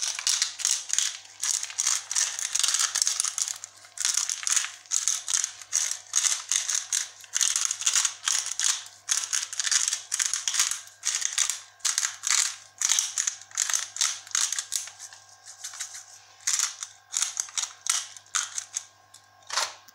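Plastic shaker bottle shaken upside down in quick repeated strokes, its loose contents rattling and sprinkling out. The shaking thins out and comes in sparser bursts over the last few seconds.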